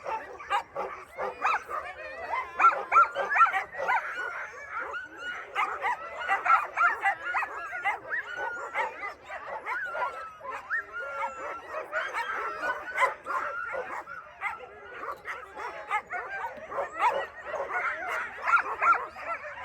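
A team of sled dogs barking, yipping and whining all at once in a continuous chorus, the excited noise of dogs being harnessed for a sled run.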